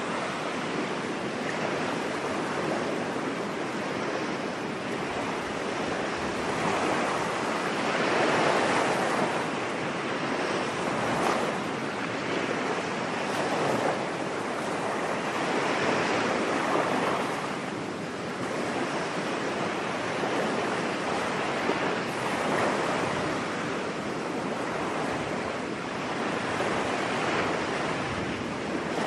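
Ocean waves washing onto a beach: a steady rush of surf that swells and falls back every few seconds.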